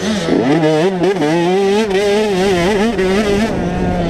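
Motocross bike engine revving under throttle. Its pitch climbs about half a second in, then wavers up and down as the rider works the throttle.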